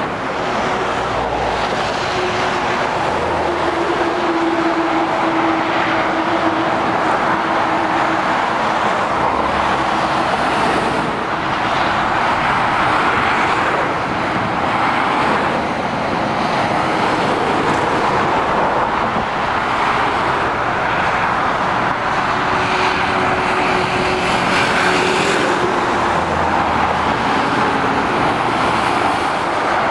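Motorway traffic passing below: heavy lorries and cars making a steady rush of tyre and engine noise, with a lower drone that swells and fades as individual lorries go by.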